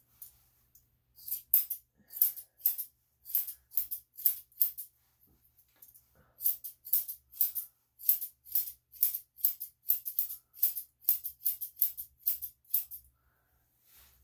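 Long round-tipped grooming scissors snipping the hair on a Yorkshire Terrier's face: a fast run of short, sharp snips, about three a second, starting about a second in, pausing briefly midway and stopping just before the end.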